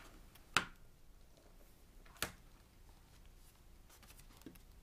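Hardcover watercolour journal with an elastic strap being handled and opened on a table: two sharp clicks, about half a second in and again just after two seconds, with faint handling noise between them.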